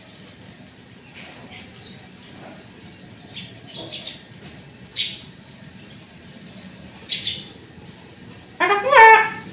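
Cockatoo giving short, high chirping calls a second or two apart, then a louder, longer call with a wavering pitch near the end.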